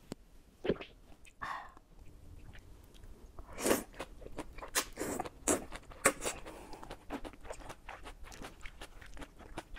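Close-miked eating: noodles of a spicy mala udon stir-fry drawn into the mouth about three and a half seconds in, then chewing with many quick wet smacks and clicks.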